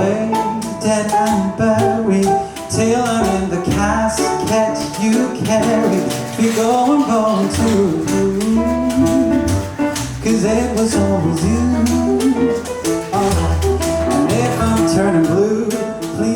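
Live band playing an instrumental passage of a cover song, before the vocals come in.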